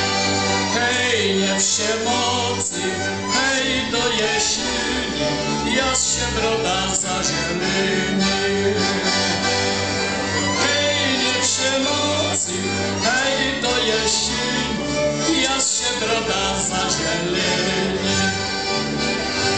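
Polish highlander folk band playing a lively tune live: two fiddles carrying the melody over an accordion and a bowed double bass, the bass changing note about once a second.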